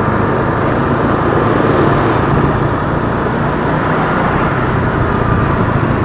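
Motorbike engine running steadily with road and traffic noise, heard from the rider's seat while riding slowly in traffic.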